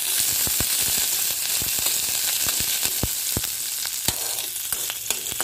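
Chopped garlic, green chilli and curry leaves sizzling in hot oil in a kadai. A steady hiss is broken by scattered sharp clicks as a spatula stirs them.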